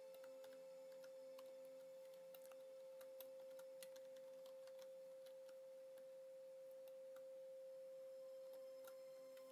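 Near silence: a faint steady tone, with scattered faint computer keyboard clicks as text is typed.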